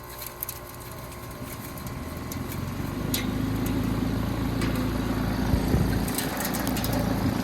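Heat pump outdoor unit coming out of defrost: its fan starts up and runs with a steady hum that builds over the first two seconds, blowing off the steam. A few light clicks sound over it.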